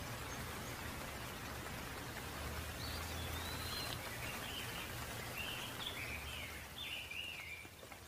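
Steady rain falling, with a bird calling in a run of short, quick-changing notes from about three seconds in until near the end.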